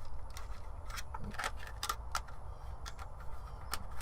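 Irregular light plastic clicks and taps as the battery cover of a Kidde battery-operated carbon monoxide alarm is snapped back on and the unit is handled. A steady low rumble runs underneath.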